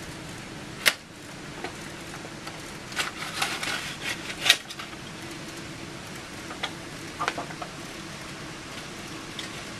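Faint steady hum of a model railway layout in operation, broken by a few sharp clicks and clacks. The loudest come about a second in and about four and a half seconds in.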